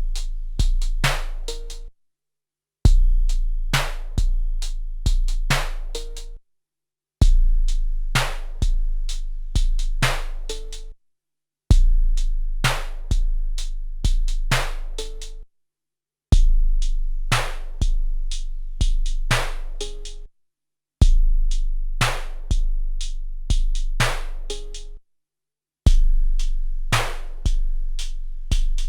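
SP-1200 12-bit drum sampler playing back a short drum pattern: a deep, booming bass drum followed by a few sharper hits. The pattern repeats about six times, with a brief silence between passes.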